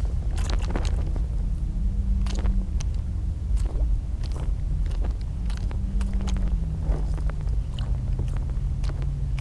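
A boat motor running with a steady low hum whose pitch shifts slightly now and then, with scattered light clicks and ticks over it.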